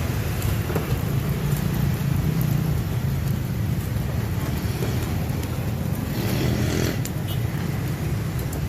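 Steady street traffic rumble, with a brief louder hiss about six to seven seconds in.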